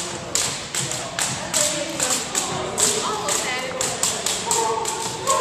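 Double dutch jump ropes slapping a wooden gym floor in a steady rhythm, about two to three slaps a second, with voices chattering in the background.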